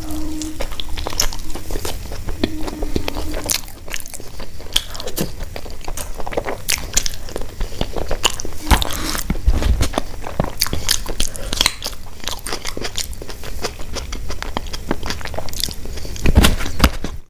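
Close-miked chewing of a big mouthful of food: wet mouth sounds and dense irregular clicks, with finger-licking. A louder low thump comes near the end.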